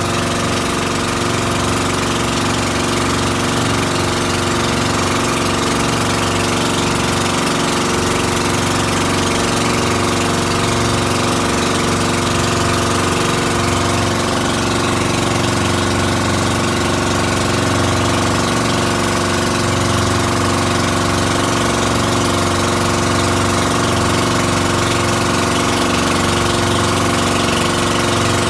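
Motorized outrigger boat's engine running steadily while under way, an even, unchanging drone with a steady hiss above it.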